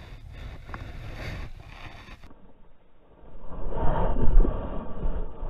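Wind rumbling on the microphone over the wash of shallow stream water, growing louder and buffeting for the second half.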